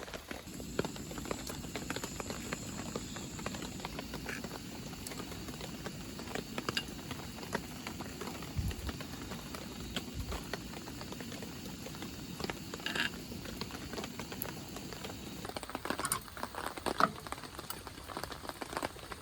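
Rain pattering steadily, a dense patter of many small drops.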